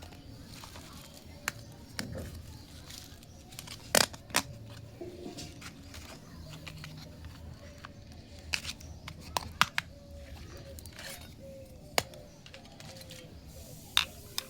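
Plastic toy playset pieces being handled and clicked together: a scattered series of sharp clicks and taps, the loudest about four seconds in, with soft rustling and handling noise between them.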